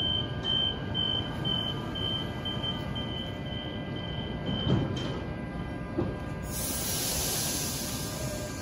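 Door-closing warning beeps of a Sydney Trains Millennium double-deck electric train: a high tone pulsing about twice a second as the doors slide shut, stopping about five seconds in, with a thump just before it stops. About a second and a half later a steady hiss starts and runs for a couple of seconds.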